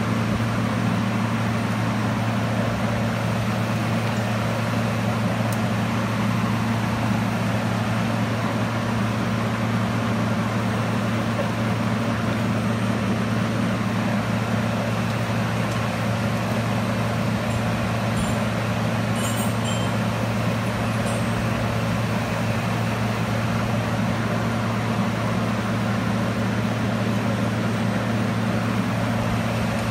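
Steady hum of a 25 kW air-cooled induction heating power source and its forging inductor running continuously: a low, double-toned hum over a steady rush of cooling-fan air, with a few faint high clicks about two-thirds of the way through.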